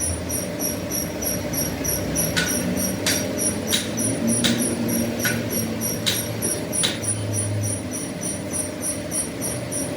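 Workshop machinery running with a steady low hum and a fast, even, high ticking about three times a second, joined from about two seconds in by a run of seven sharp metallic clicks spaced about three quarters of a second apart.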